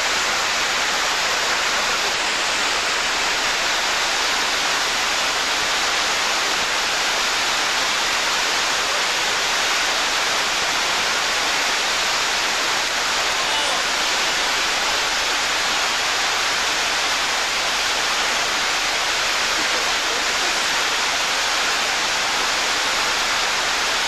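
Water cascading over a stepped weir: a steady, unbroken rush of white water.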